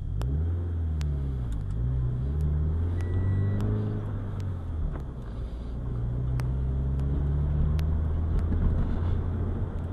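Scion FR-S's 2.0-litre FA20 flat-four with a TRD intake, heard from inside the cabin as the car pulls away and accelerates. Its pitch rises and drops twice over the first four seconds, then it runs at a steadier cruise.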